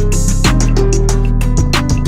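Background music with a steady beat: sustained bass notes, a held melody and regular drum hits.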